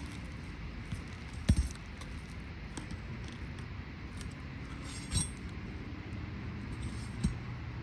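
A few sharp knocks and clinks from hand work on asphalt shingles, the loudest about one and a half seconds in, over a steady low rumble.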